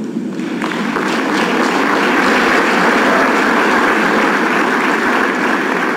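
Applause from a roomful of people clapping, building over the first second and then holding steady.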